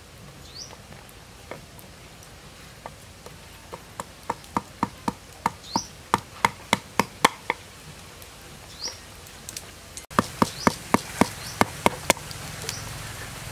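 Cleaver chopping young tamarind pods on a wooden chopping board: a run of sharp knocks about three a second, then a faster run of about six a second near the end.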